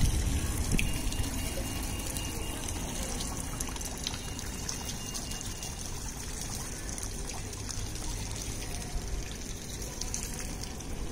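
Stone courtyard fountain running steadily, its water welling up over a mound of stones and splashing into the basin.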